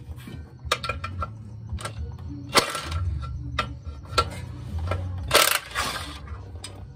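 Scattered metallic clicks and knocks of hand tools and parts at a truck's exposed clutch pressure plate and flywheel. Two longer scraping rasps come about two and a half and five and a half seconds in.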